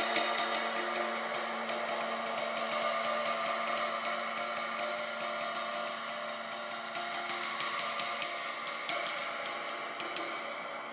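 Zildjian 24-inch K Custom Dry Complex Ride II cymbal played on the bow with a wooden drumstick: an even run of ride strokes, about five a second, over a ringing wash, slowly getting softer. The strokes stop shortly before the end and the cymbal rings on.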